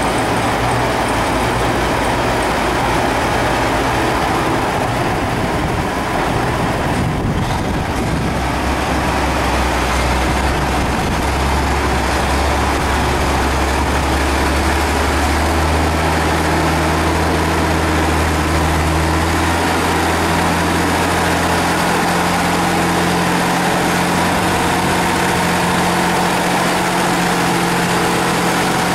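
Farm tractor's diesel engine running steadily as the tractor creeps forward at low speed; its engine note steps up to a higher pitch about halfway through.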